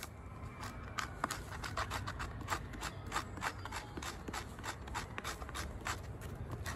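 Ka-Bar BK72 knife blade scraping birch bark from a log, a quick run of short scraping strokes at about four a second that starts about half a second in; the razor-sharp edge lifts the bark easily, gathering it as fire tinder.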